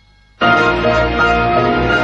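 Background music starts suddenly about half a second in, with steady sustained notes like a keyboard.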